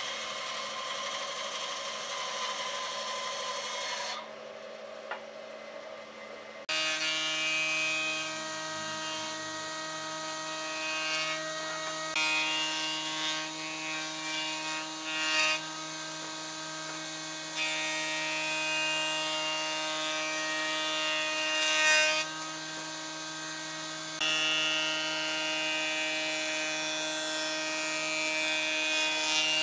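A band saw cutting through a thick wooden slab, ending about four seconds in. After a short lull a jointer starts up with a steady hum, and its cutterhead shaves the edge of the board in several passes, each pass adding a brighter, louder cutting sound.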